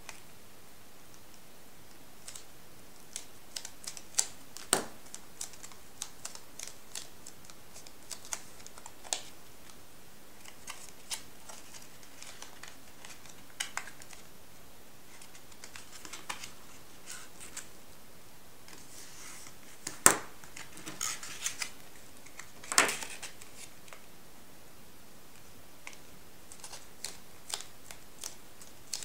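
Stiff paper being folded and creased by hand: irregular crackles and small clicks, with two louder snaps in the second half.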